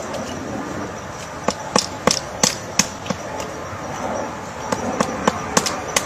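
Pileated woodpecker excavating a hole in a tree trunk, striking the wood with its bill in single hard pecks at irregular intervals. There is a run of about seven pecks from about a second and a half in, a pause, then about five more near the end.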